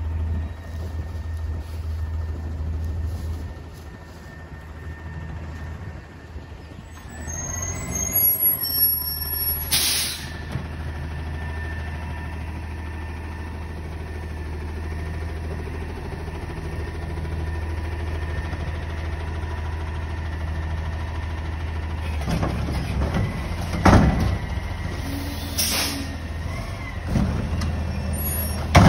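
Front-loader garbage truck's diesel engine idling steadily, with several short, sharp air hisses from its air brakes, the first about ten seconds in and more near the end.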